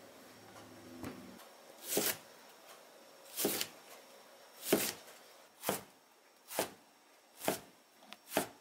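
A kitchen knife slicing through a raw cauliflower head on a cutting board: seven crisp crunching cuts about a second apart, coming slightly faster toward the end.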